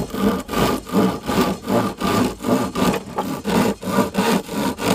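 Hand-sawing a small branch with a coarse reciprocating-saw blade set in a homemade tube handle. The saw makes quick, even push-pull strokes, about three a second, and the blade cuts through the wood easily.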